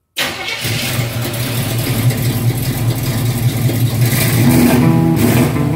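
Car engine running with a steady low rumble. Music with plucked strings comes in over it near the end.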